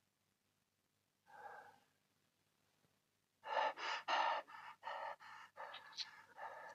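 A person gasping for breath: one faint breath, then a run of about eight short, quick panting gasps starting about three and a half seconds in.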